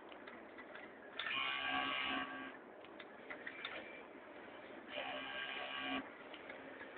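Industrial sewing machine running in two short bursts, each a steady whine lasting about a second, with small clicks between the runs as towel fabric is stitched.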